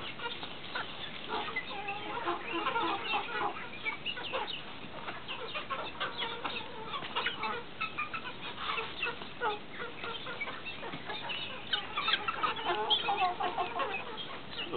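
A flock of chickens clucking around their feed: many short calls overlapping without a break, a little louder about twelve seconds in.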